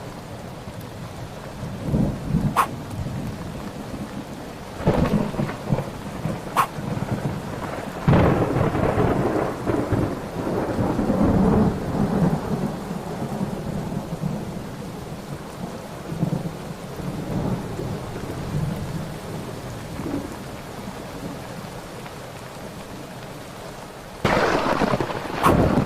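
Thunderstorm: rolling thunder over steady rain, with several rumbles that swell and fade, the longest and loudest about eight seconds in, and a louder surge near the end.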